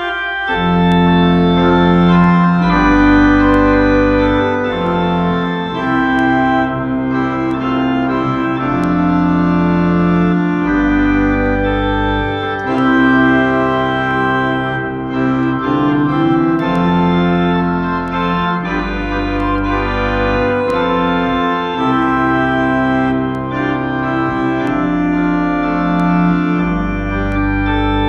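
Two-manual home electronic organ playing a hymn: sustained chords over deep bass notes that change every couple of seconds.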